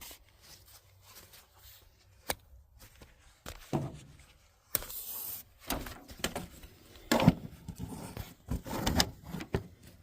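Handling noise as a camera is picked up, moved and set down: scattered knocks and clicks, a brief scraping hiss about five seconds in, and a cluster of thumps near the end.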